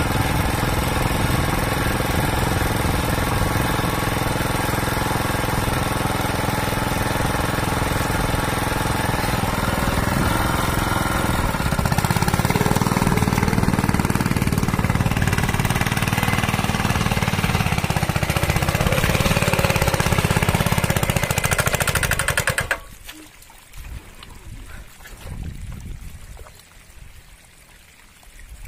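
Hand tractor's single-cylinder diesel engine running hard while pulling a moldboard plow. It labours louder and lower about halfway through, then dies abruptly near the end, stalled by the overloaded plow in grassy ground. Faint water trickling and splashing follows.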